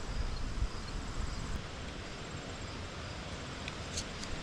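Faint insects chirping steadily in rapid, even pulses over a low rumble and hiss, with a light click or two.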